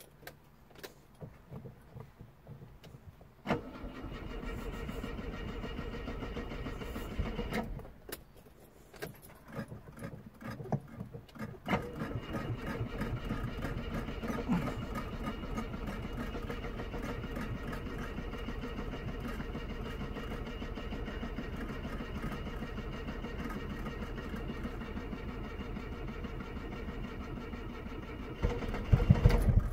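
Car engine cranked by its starter, catching about three and a half seconds in and running briefly before it stops near eight seconds. It is cranked again, catches near twelve seconds and idles steadily, then runs louder with uneven surges near the end.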